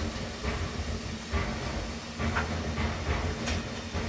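Water-bath canner with jars of pickled beets heating on the stove: a steady hiss over a low hum, with a few light clinks scattered through it.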